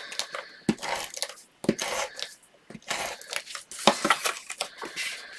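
Paper and cardstock rustling and crinkling in irregular strokes, with a few sharp taps, as patterned paper panels are handled and pressed down onto the card.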